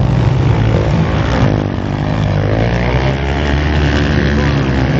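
Loud motocross dirt bike engines racing on the track, revving up and down in pitch as the riders work the throttle over the jumps.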